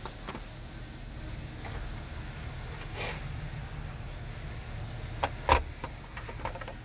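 A few light clicks and knocks of plastic dash parts being handled, the loudest about five and a half seconds in, over a steady low hum.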